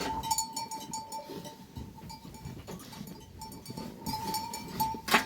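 Bells on a flock of sheep and goats, jingling and clinking with a ringing tone, and one loud sharp click about five seconds in.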